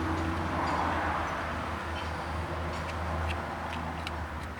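Steady low background hum, with a few faint light clicks of small plastic window-switch parts being handled and fitted together in the second half.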